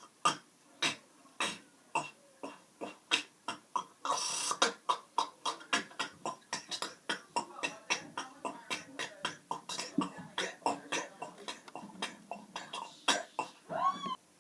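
Beatboxed K snares made with the mouth, inward and outward, varied by lip position. They form a string of sharp clicks, about two a second, then quicker after about four seconds, when a short hiss is also heard. A brief wavering pitched sound comes near the end.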